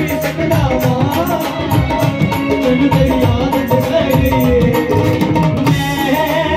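Live devotional jagran band music played through PA speakers: a dhol and hand drums keep a fast, even rhythm under a keyboard melody.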